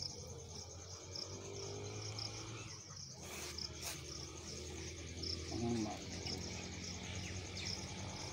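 An insect chirping steadily in short, evenly repeating pulses, with a brief rustle of leaves being handled a little after three seconds in.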